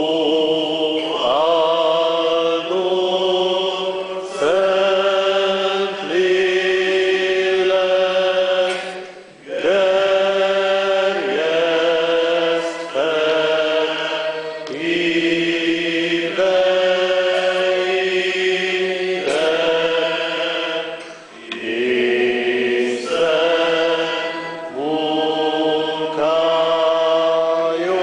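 Congregation singing a slow hymn together in long held notes that move step by step, with a short break between phrases about 9 seconds in and again about 21 seconds in.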